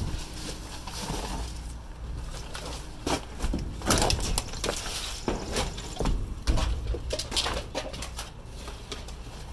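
Scattered knocks and clatter of scrap metal and wire being handled and gathered up, with several sharper clanks over a low steady rumble.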